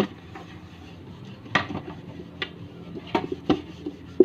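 A few scattered sharp clinks and knocks of an aluminium cooking pot and dishes being handled.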